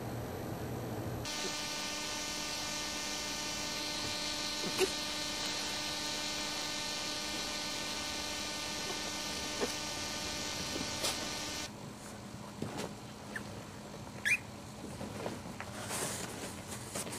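A steady electric buzz with many high overtones starts about a second in and cuts off suddenly about ten seconds later. Then come soft scratches and taps of puppies moving about in a cardboard box, with one short high squeak.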